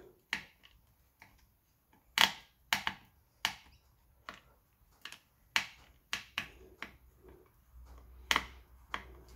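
Screwdriver with a hacksaw-notched Torx bit clicking in a pin-type security Torx screw on a plastic battery pack as the screw is worked loose. A string of sharp, unevenly spaced clicks, the loudest about two seconds in and again near the end.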